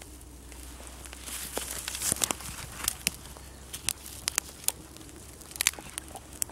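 Dry-grass tinder bundle catching fire: a rush of burning builds about a second in, followed by sharp crackles and pops as the grass burns.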